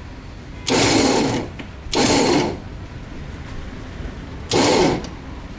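Small electric winch motor run in three short bursts from its wired remote, reeling in cable to pull the motorcycle into place; the last burst is the shortest.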